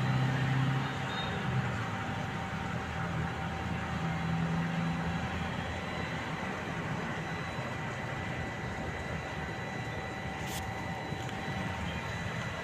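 Steady urban background rumble with a faint steady high whine, and one sharp click about ten and a half seconds in.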